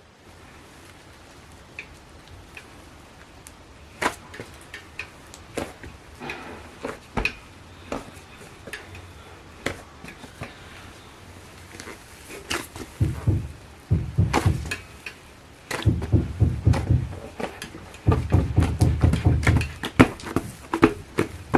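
Slime being kneaded and pressed by hand, making sticky clicks and pops, sparse at first, then dense runs of squishy crackling in several bursts from about halfway through.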